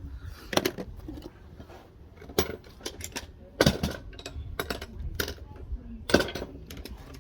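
Scattered light metallic clinks and knocks, a few of them sharp and loud, like small metal objects being handled and set down.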